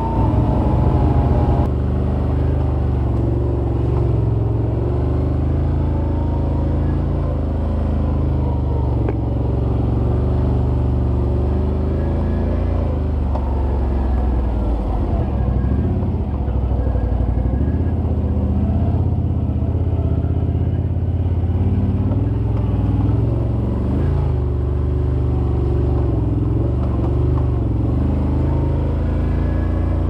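Can-Am Outlander 800 XT ATV's V-twin engine running through an HMF Swamp XL slip-on exhaust while riding, its revs rising and falling with the throttle.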